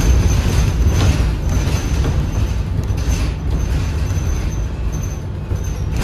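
A 2013 New Flyer XDE40 diesel-electric hybrid bus under way, heard from inside the cabin: a steady low drivetrain rumble with a thin high whine that comes and goes. The sound eases slightly near the end.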